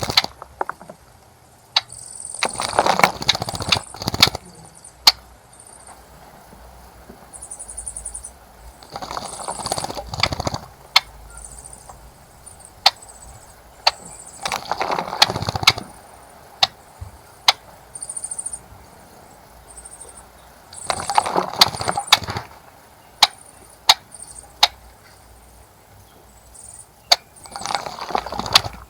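Small birds splashing in a bird bath in repeated bouts of a second or two, about every six seconds. Short high chirps and sharp single clicks come in between.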